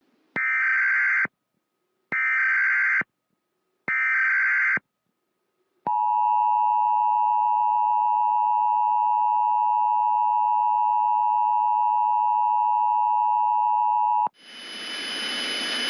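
Emergency Alert System tones: three short bursts of SAME digital header data about a second apart, then the steady two-tone EAS attention signal held for about eight seconds. The attention signal cuts off into a steady hiss near the end.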